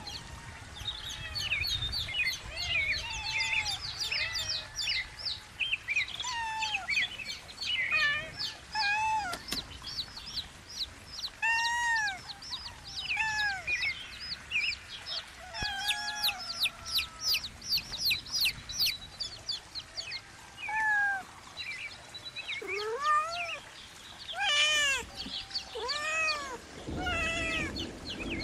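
Young chicks peeping continuously in rapid, short, high chirps. A kitten meows over them repeatedly, a few times early on and most often in the last third.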